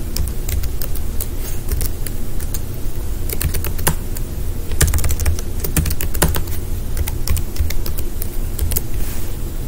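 Computer keyboard typing: irregular, quick keystrokes as a password is typed and then typed again, over a low steady hum.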